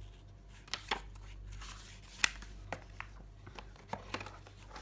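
Paper leaflets and cardboard packaging being handled: scattered light rustles and clicks, with one sharp tap about two seconds in.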